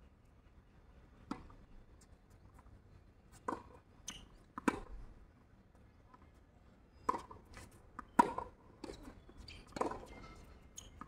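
Tennis ball struck by rackets and bouncing on a hard court during a rally, starting with a serve: a string of sharp, unevenly spaced pops, the loudest a little after eight seconds in.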